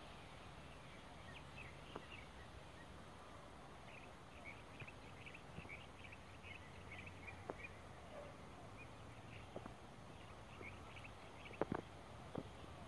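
Faint background hiss with small birds chirping in many short, high notes, and a few sharp clicks, the loudest a close pair near the end.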